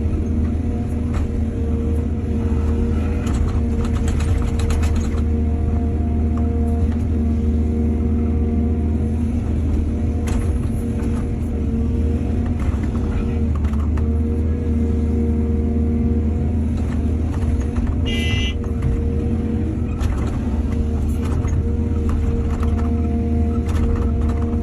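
Excavator's diesel engine running steadily, with bursts of clanks and knocks from the machine at work. A brief high squeal sounds about two thirds of the way through.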